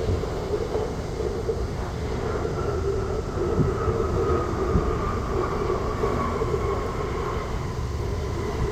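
Jet airliner's engines running with a steady rumble, and a thin engine whine that slowly falls in pitch from about two seconds in.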